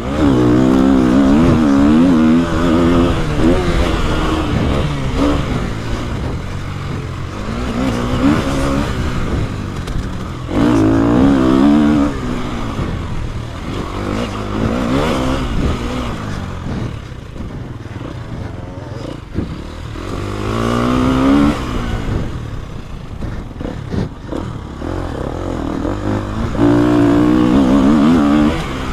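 KTM EXC-F 250's four-stroke single-cylinder engine pulling hard and backing off over and over, its pitch climbing and dropping through the gears, with about six loud full-throttle surges.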